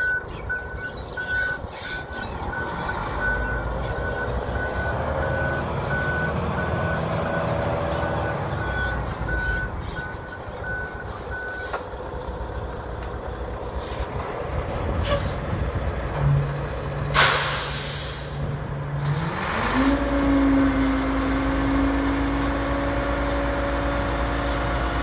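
Mack quad-axle dump truck backing up, its reversing alarm beeping steadily over the running diesel engine, the beeping stopping about halfway through. A sharp hiss of air from the air brakes follows. Then the engine speeds up and holds a steady higher pitch as the hydraulic hoist raises the dump body.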